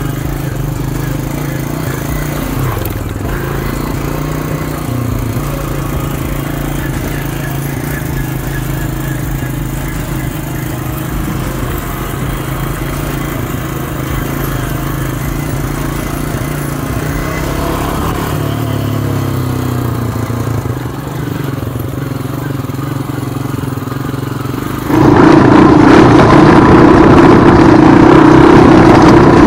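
Honda 250cc dirt bike engine running as the bike rides along a dirt trail, heard from a distance at a moderate level. About 25 seconds in it turns abruptly much louder and closer, engine and rushing noise heard from on the bike itself.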